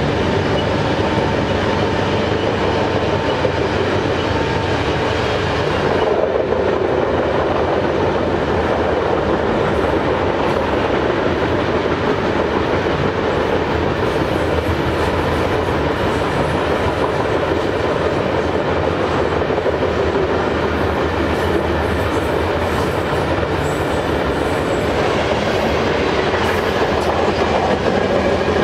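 Loaded coal train's hopper cars rolling past on steel rails: a steady, loud run of wheel-on-rail noise with some clatter.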